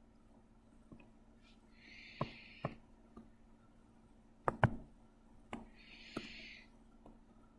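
Scattered clicks and taps of computer input during digital drawing, the loudest a quick pair about four and a half seconds in. Two short breathy hisses come at about two and six seconds.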